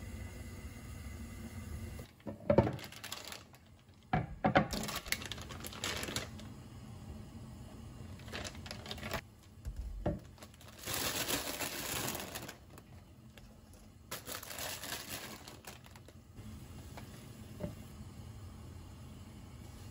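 Kitchen work sounds: scattered clicks, clinks and knocks of utensils and dishes being handled, with two longer stretches of hiss about halfway through and again a little later.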